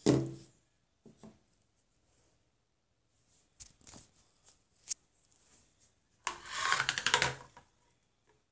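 Handling noise from a handheld phone camera being moved around: a bump at the start, a few light knocks and a click, then a rustling scrape lasting a second or so near the end.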